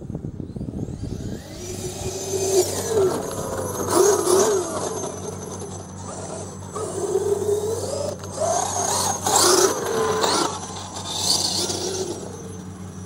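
Electric Losi 5IVE-T 1/5-scale RC truck, fitted with a Lehner LMT 3080/6 brushless motor, driving on grass, its motor whine rising and falling with the throttle in several bursts of acceleration.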